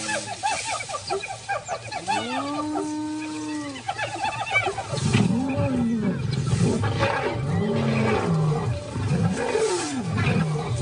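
Lions and spotted hyenas clashing. For the first few seconds there are high calls that rise and fall, with a rapid chattering. From about five seconds in, lower and louder growls and snarls repeat.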